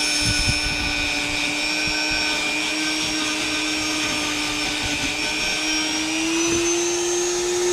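Electric buffing wheel running steadily while small steel knife parts are polished against it to take off oxidation, with a few light knocks early on and a slight rise in its pitch a little after six seconds in.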